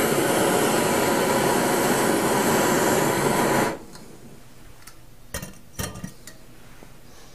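Canister camp stove burner (a Chinese knock-off of the MSR Pocket Rocket) running at full blast with a steady loud hissing roar, which cuts off suddenly about 3.7 seconds in as the valve is shut. A couple of light metal clanks follow as the aluminium pot is set back onto the stove.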